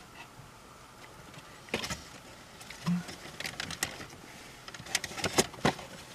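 Wheels of a slow-moving track-maintenance train clacking over rail joints: irregular clicks and knocks in clusters, over a faint steady hum.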